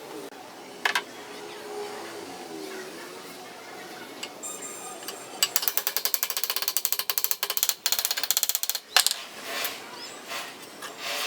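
A metal mechanism clicking rapidly and evenly, about ten clicks a second for three to four seconds, ending in a louder knock; scattered metal clinks come before it.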